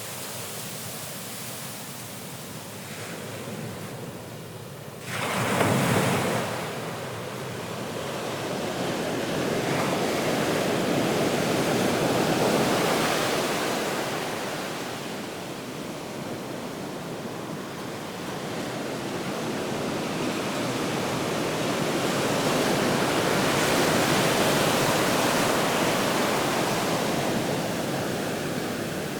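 Ocean waves breaking and washing ashore: one sudden loud crash about five seconds in, then slow swells that build and fade every ten seconds or so.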